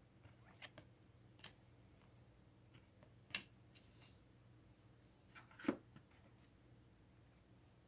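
Baseball trading cards being handled and set down on a desk: a few soft card clicks and taps, with two sharper ones a little after the middle and about two seconds later, over a faint steady hum.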